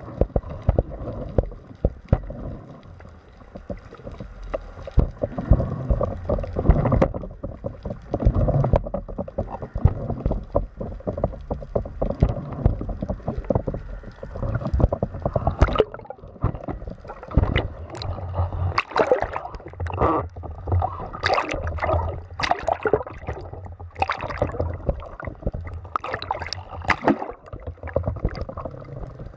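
Underwater sound picked up by a diver's camera: a low rumbling water noise against the housing, with scattered clicks and knocks that come thicker in the second half, as the speargun gear is handled near the end.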